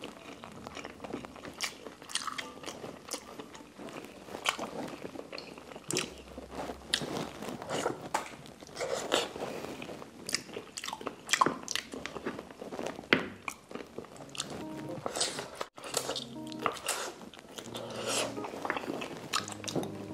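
Close-up chewing and biting of braised pork trotter skin and meat: wet mouth smacks and many short, sharp clicks of teeth and lips.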